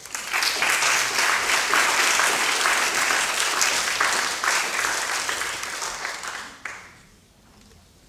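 An audience applauding, a dense patter of many hands clapping that dies away about seven seconds in.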